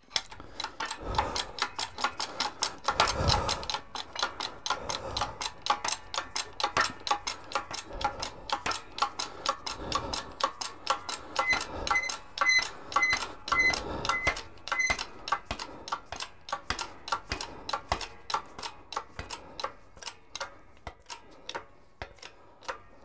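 Hydraulic shop press bottle jack being pumped to bring the ram down onto a clutch pressure plate: an even run of sharp clicks, about three to four a second, with a short high squeak among them for a few seconds in the middle. It stops abruptly near the end.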